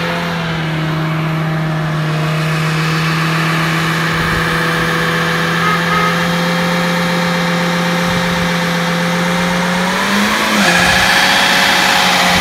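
Pontiac G5's four-cylinder engine held at high, steady revs during a front-wheel burnout, with the spinning front tyre hissing on the dirt. Near the end the revs rise briefly, then the sound gets louder and harsher.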